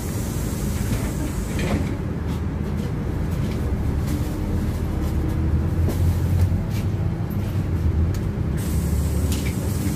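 Inside the passenger cabin of a LiAZ 5292 city bus: a steady low drone of the bus's engine and running gear, under a hiss of tyres on the wet road. The hiss drops away about two seconds in and comes back near the end.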